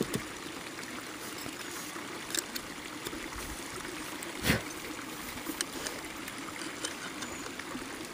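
Porlex Mini hand burr grinder grinding coffee beans: a steady gritty crunching with scattered sharp clicks, the loudest about four and a half seconds in.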